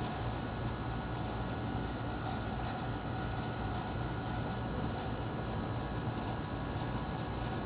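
Steady low rumble and hiss with a faint constant hum, unchanging throughout, with no distinct knocks or scrapes standing out.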